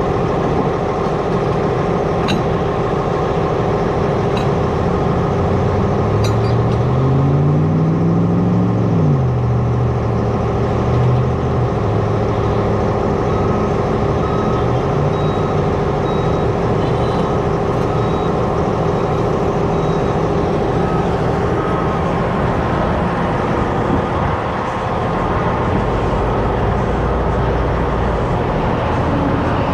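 Motor vehicle driving, with steady engine and road noise. About a quarter of the way in, an engine revs up over a few seconds, then drops back as it shifts gear.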